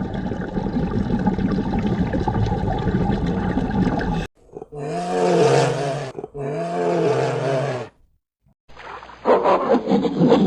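Wild animal calls: a rough, growling roar for about four seconds, then two long roaring calls that rise and fall in pitch. After a brief silence about eight seconds in, a different animal's sharp calls begin.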